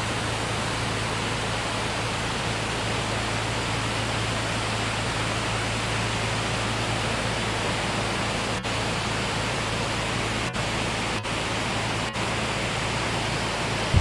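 Steady rushing of Wahkeena Falls, an even noise of falling water, broken by a few momentary dropouts in the second half.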